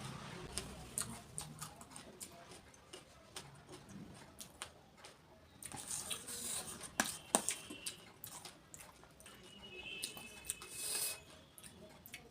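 Close-miked eating of golgappa (pani puri): crisp puri shells crunching and wet mouth clicks while chewing, irregular throughout, with a couple of louder cracks about seven seconds in.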